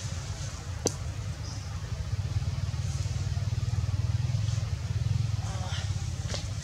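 A steady low rumble that swells in the middle and then eases off, with one sharp click about a second in.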